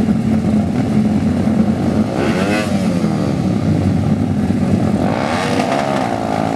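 Modified race motorcycle engines held at high revs in a loud, steady drone, with a second engine's revs sweeping up and down about two seconds in and again near the end.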